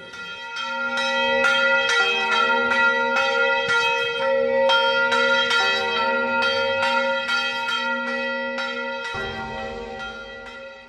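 Church bells ringing a rapid peal, about two strikes a second, over their sustained ringing tones; the strokes stop about nine seconds in and the last ring dies away.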